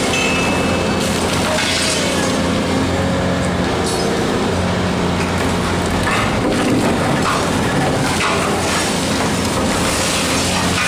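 Excavator engine running steadily under load while its hydraulic jaw crusher crunches through a precast concrete bridge segment. Concrete cracks and debris falls throughout.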